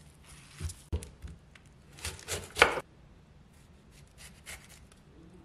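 A chef's knife cutting a half red cabbage on a wooden chopping board. A few knocks come about a second in, then the loudest crisp crunching cut through the leaves near the middle, and lighter crunchy slicing towards the end.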